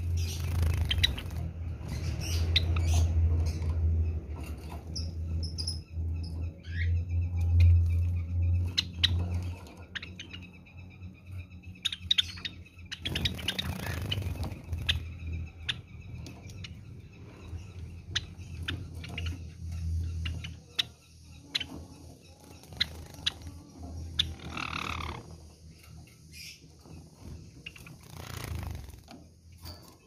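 Java sparrows giving short chirps throughout, with repeated bursts of wing flapping close by, loudest in the first several seconds.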